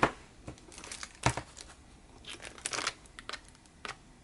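Craft paper being handled and crinkled, with two sharp taps, one at the start and one just over a second in, and a run of crinkling a little after two seconds.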